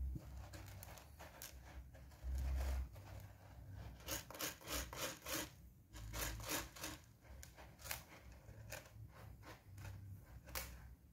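Two-month-old kitten's paws scratching and raking through granular cat litter in a plastic litter box, in repeated quick scrapes that come thickest about four to five seconds in. A low bump about two seconds in.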